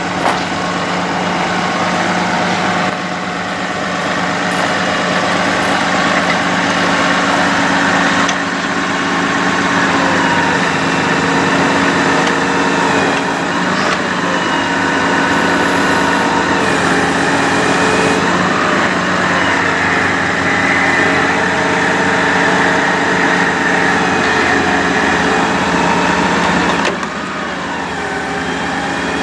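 Sterling Bullet bucket truck's Cummins 6.7 L diesel running steadily with the PTO engaged, driving the Altec AT37-G boom hydraulics. Its note wavers in pitch a few times.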